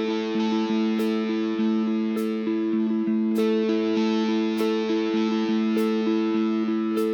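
Background music: distorted electric guitar holding sustained chords over a steady beat, with a cymbal-like hit about every second.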